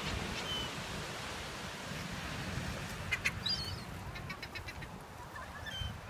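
Seagulls calling a few times, with a quick run of short notes about four seconds in, over a steady wash of surf and wind.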